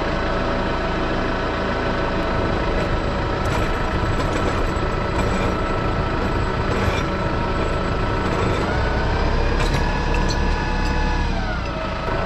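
Tractor engine running steadily at idle, then revved up about nine seconds in and let back down near the end.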